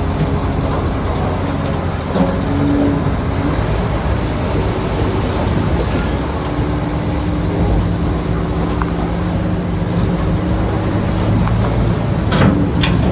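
Heavy diesel earthmoving machinery running steadily under load, with scraping and a few metallic clanks, the sharpest two near the end.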